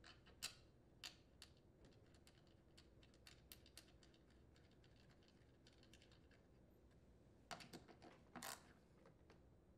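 Faint scattered metallic clicks and taps of a small bolt being handled and threaded by hand into an aluminium engine flange, then a short cluster of clicks near the end as a socket is fitted and turned on the bolt.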